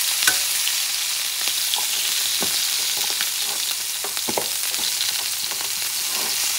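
Kangaroo loin searing in butter in a hot frying pan: a steady hissing sizzle with scattered sharp pops of spitting fat.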